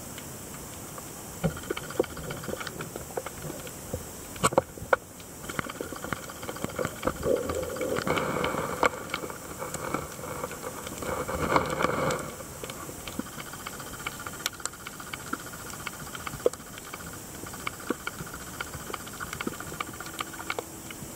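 Underwater ambience picked up by a camera in its housing: a steady hiss scattered with short sharp clicks and crackles. A humming drone swells through the middle and cuts off suddenly about twelve seconds in.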